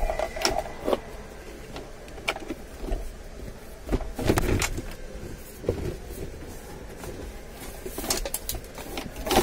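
Scattered clicks and knocks of plastic trim being handled and worked loose from a car's centre console around the handbrake lever. The louder knocks come about four seconds in and again near the end.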